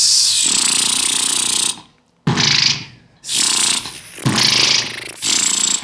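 Beatboxed outward lip bass: lips buzzing as air is pushed out, mixed with a hissing 'sh' or 's' sound. A long burst of about two seconds, then four shorter ones.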